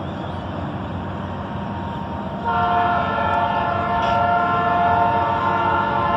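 Diesel freight locomotive's air horn sounding a long blast, several notes at once, starting about two and a half seconds in. It is a crossing warning from the approaching train. A steady low rumble runs underneath.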